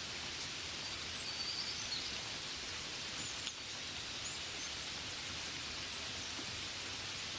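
Steady gentle rain, an even hiss of drops, with a few short, faint high chirps about a second in and again around three to four seconds in.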